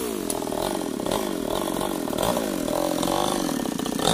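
Two-stroke chainsaw engine running, its pitch rising and falling over and over, about twice a second.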